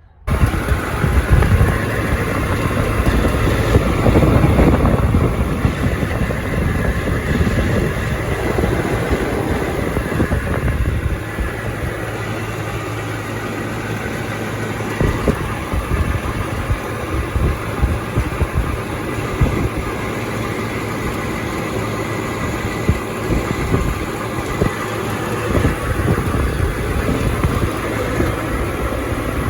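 Old Trane XB100 outdoor air-conditioner condensing unit running, its fan and compressor making a loud steady noise with a metallic rattle and clicking through it. The rattle seems to come from the unit's top panel.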